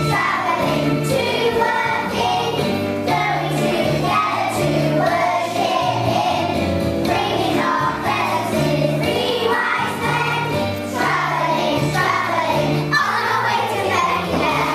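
A group of young children singing a song together over backing music with a steady, repeating bass line.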